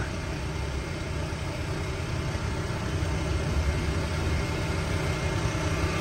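Refrigeration vacuum pump running with a steady low drone while it evacuates a car's air-conditioning system through a leaking service-port coupler.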